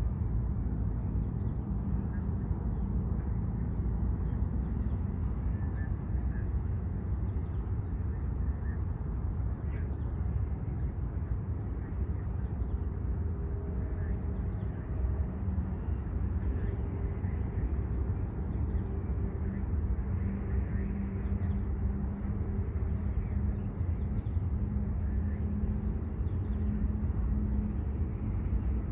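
Steady low outdoor rumble with a faint held hum, and birds chirping faintly now and then.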